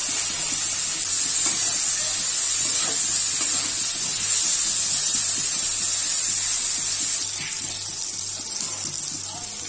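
Potato chunks and prawns sizzling in hot oil in a kadai as they are stirred with a spatula: a steady hiss that eases a little over the last couple of seconds.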